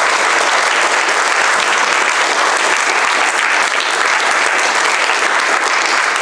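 Audience applauding steadily, the clapping of a lecture audience at the end of a talk.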